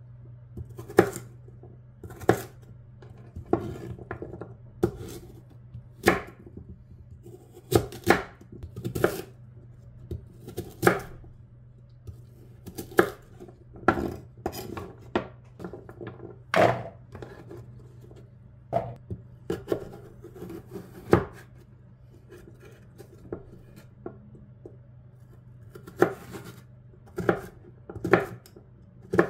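Chef's knife chopping peeled sweet potato into cubes on a wooden cutting board: sharp knocks of the blade going through onto the board, irregular and roughly one a second, with a short pause about three-quarters of the way through. A faint low steady hum runs underneath.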